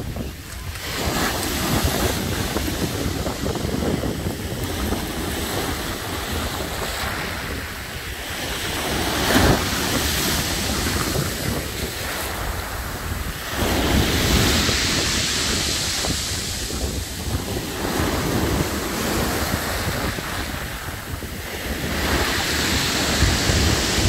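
Black Sea surf breaking and washing over a pebble beach, the rush of water swelling and ebbing every few seconds, with wind rumbling on the microphone.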